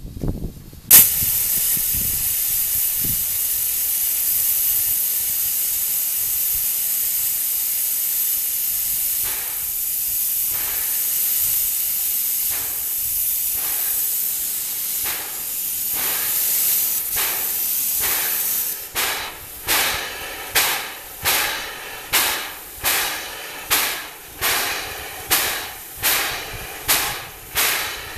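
Steam hissing steadily and loudly from the feed to the steam-driven air compressor of Chicago & North Western R-1 locomotive No. 1385, starting suddenly about a second in. The steam comes from a 1922 Minneapolis traction engine. Some eighteen seconds on, the steady hiss turns into a rhythmic chuff of steam exhaust, a little more than one beat a second, as the compressor starts stroking.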